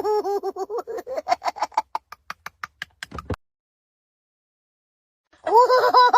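A high-pitched comic sound effect like sped-up giggling, pulsing rapidly and climbing in pitch until it breaks into quick clicks and cuts off about three seconds in. After a couple of seconds of dead silence it starts again near the end.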